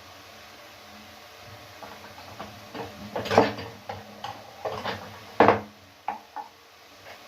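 Light clinks and knocks of kitchen utensils and small dishes against a cooking pot as spices are tipped in, a scattered handful of strikes with the loudest about three and a half and five and a half seconds in.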